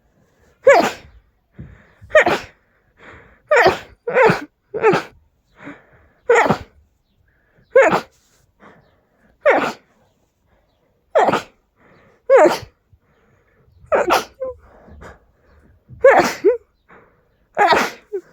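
A person sneezing loudly again and again in a long fit of about a dozen sneezes, roughly one every second or two, with quieter short sounds between them.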